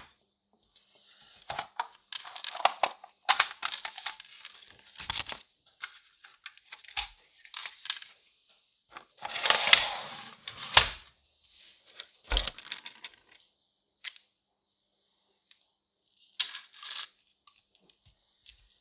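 Art materials being handled: short, irregular bursts of tearing and crinkling with pauses between them, and a couple of sharp knocks about ten to twelve seconds in.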